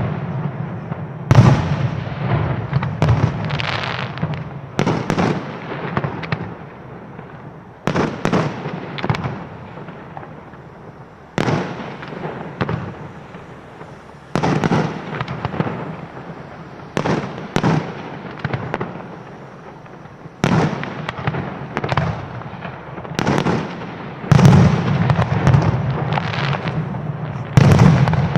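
Aerial fireworks shells bursting one after another in quick clusters: sharp bangs, each fading away in an echo before the next volley.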